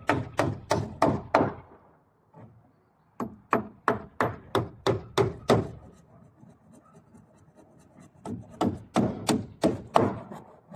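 Hammer driving nails into wooden roof battens. Three runs of quick blows, about four or five a second, with short pauses and a few lighter taps between them.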